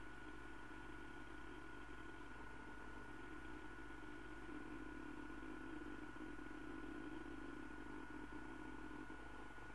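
Steady hum and hiss with a constant thin whine above it, unchanging throughout, with no distinct events.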